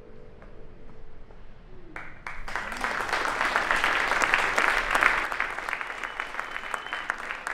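An audience starts applauding about two seconds in, the clapping loudest midway, with a high drawn-out whoop from the crowd near the end.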